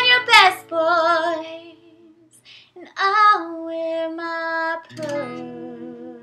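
A woman singing the final held notes of a country-pop song, wordless and wavering, over two strummed chords on an acoustic guitar.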